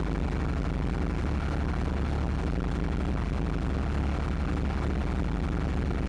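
ATV running along a paved street, heard through a camera bolted to the machine: a steady, loud low rumble of engine and vibration with a noisy haze over it.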